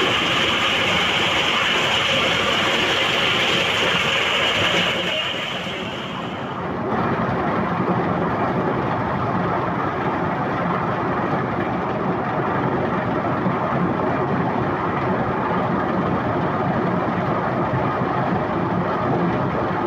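Engine-driven corn sheller running loud and steady. A bright, hissing rattle on top stops about six seconds in, leaving the machine's running noise.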